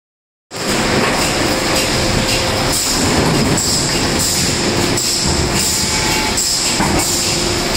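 Loud, steady noise of an automatic steel floor-panel production line, its sheet-feeding and press machinery running with a regular clatter and a high whine. It starts suddenly about half a second in.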